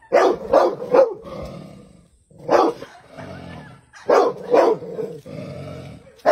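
A dog barking at a snake it is confronting: sharp barks in quick runs of two or three, about six in all, with a lower rough sound between them.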